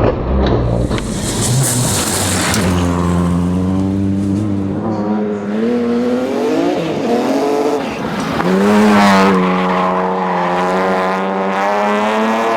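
Rally car engine at full attack, its note rising and dropping with gear changes and lifts, with a hiss of tyres and gravel about one to two seconds in and a hard climb in revs past eight seconds that then holds high.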